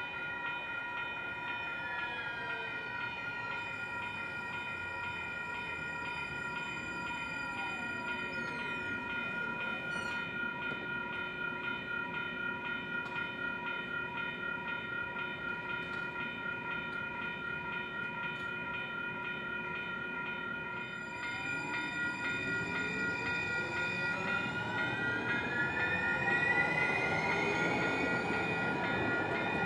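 Railroad grade-crossing warning bells ringing steadily as a train runs through the crossing. The rumble of the train grows louder about twenty seconds in, and sliding tones rise and fall over the bells.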